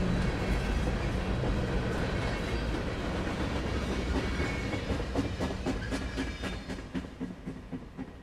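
Freight train's last cars rolling on the rails: a steady wheel rumble, with rhythmic clickety-clack over the rail joints coming through more plainly in the second half, fading as the end of the train moves away.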